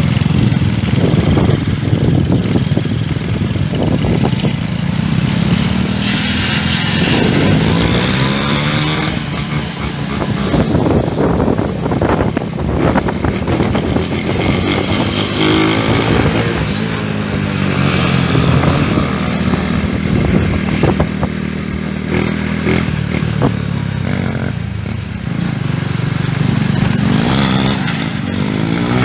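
Yamaha Crypton 110 cc motorcycle, fitted with twin exhausts, being ridden. Its single-cylinder four-stroke engine revs up and down repeatedly, rising and falling in pitch several times.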